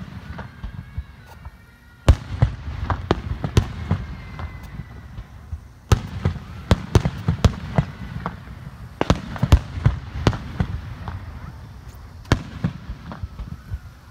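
Aerial fireworks shells launching and bursting: a dense run of sharp bangs and crackles over a low rumble. The loudest booms come about two, six, nine, ten and twelve seconds in.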